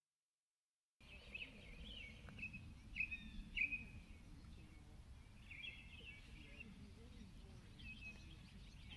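Small birds chirping and singing in short phrases, starting about a second in, over a faint low rumble of outdoor background noise.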